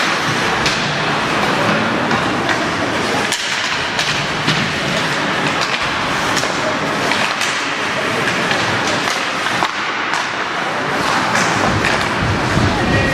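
Ice hockey game sounds in an arena: repeated sharp clacks and knocks of sticks, puck and boards over a steady din of crowd chatter.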